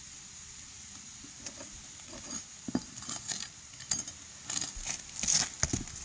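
A metal pry tool clinking and scraping against asphalt shingles and roofing nails as an old nail is worked loose. The clicks are scattered, starting about a second and a half in, with a couple of short squeaks.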